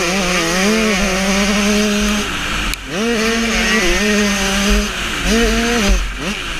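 Motocross dirt bike engine at race pace, heard from a camera on the bike: it holds high revs, backs off about two seconds in with a brief cut near three seconds, then revs up and backs off twice more.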